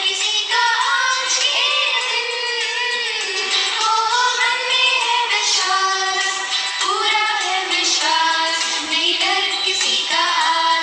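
A woman singing a prayer, a slow melody in a high voice with held notes that glide from one pitch to the next.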